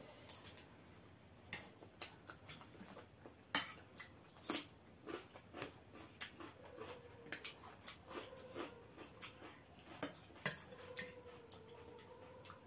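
Eating at close range: chewing and mouth smacks on pasta, with irregular sharp clicks of spoons against steel bowls.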